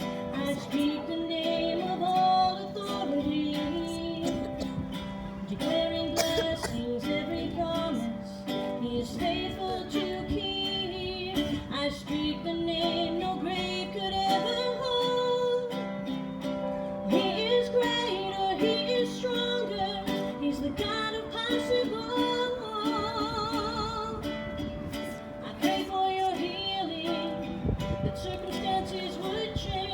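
Gospel music with acoustic guitar accompaniment and a melody line that wavers with vibrato, over a steady low held tone.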